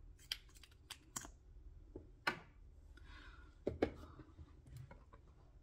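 Irregular small clicks and taps of a plastic mascara tube and wand being handled, about a dozen, with two louder knocks a little after two seconds and near four seconds in.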